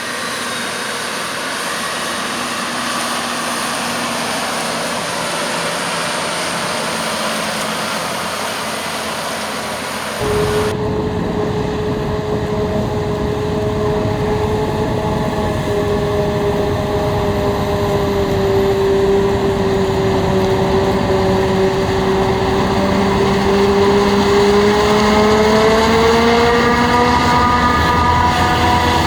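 Heavy diesel farm machinery working in a maize field: a steady engine with a bright hiss, then abruptly about ten seconds in a louder, closer diesel engine whose pitch climbs near the end as it revs up.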